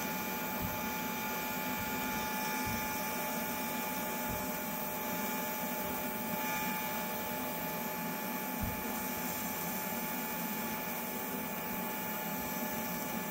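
TIG welding arc from an AHP Alpha 200X inverter welder, burning steadily while a bead is laid with filler rod. It gives an even hiss with faint steady whining tones and does not change.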